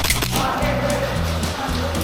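Background music with a bass line moving in steady blocks, over a run of sharp clicks.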